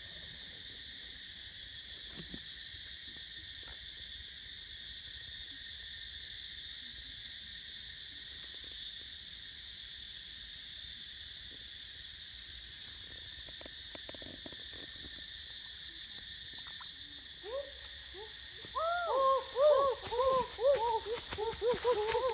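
A steady high-pitched drone of jungle insects. From about three-quarters of the way in, a fast series of short hooting calls takes over, each rising and falling, and these are the loudest part.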